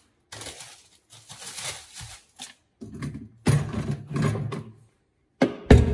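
Plastic shopping bag and a plastic-wrapped tray of oranges rustling and crinkling as they are handled, in several irregular bursts, with a louder clatter near the end.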